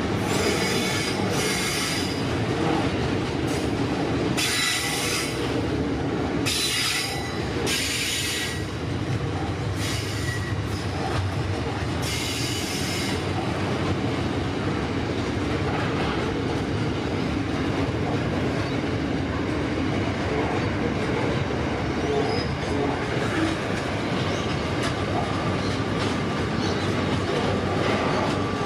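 Container freight train passing close by, its wagons rolling past with a steady rumble and clatter. Over the first dozen seconds the wheels give repeated high-pitched squeals, each lasting about a second; after that only the rolling rumble goes on.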